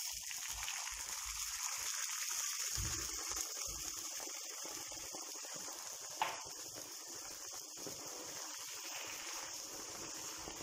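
Hot sugar-and-butter caramel sizzling and hissing as cold milk is poured onto it, the caramel seizing into lumps. A steady hiss that starts suddenly and eases off slightly, with a single sharp click about six seconds in.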